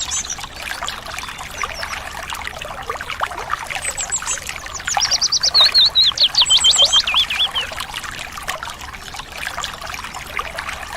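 Water trickling steadily, with a songbird singing a quick phrase of high, rapidly falling whistled notes and trills about four seconds in, the loudest sound, and a few fainter chirps elsewhere.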